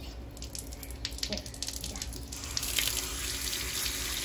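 Water running from a tap, coming on about two and a half seconds in and running steadily, after a few light knocks and clicks.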